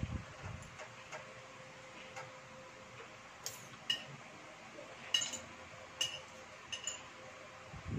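Metal spoon and fork clinking and scraping against a ceramic dinner plate while eating, with about seven light clinks in the second half, over a faint steady hum.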